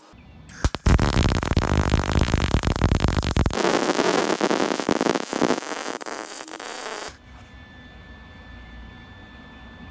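Arc welding on steel tabs and tubing: a loud, steady crackling hiss from about a second in that stops about seven seconds in. A faint steady hum is left after it.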